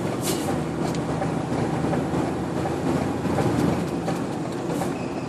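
Lorry engine running with tyre and road noise as it drives along, heard from inside the cab: a steady drone.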